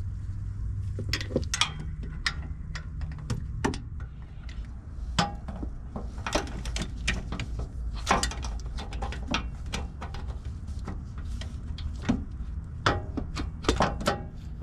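Metal hand tools clicking and clinking irregularly as a wrench works on the exhaust bolts, tightening them down, over a steady low hum.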